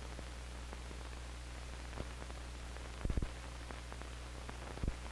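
Steady hiss and low hum of an old film soundtrack, with a few faint clicks and pops, the loudest a short cluster about three seconds in.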